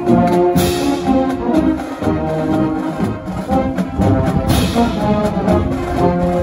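Marching band brass section of sousaphones, trombones and trumpets playing a tune with the drumline, with two cymbal crashes, about half a second and four and a half seconds in.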